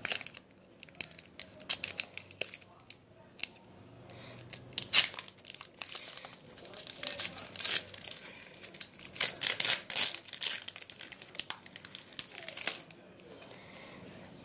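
Foil wrapper of a Pokémon trading card booster pack being torn open and crinkled by hand: irregular crackles and rips, busiest around the middle, stopping shortly before the end.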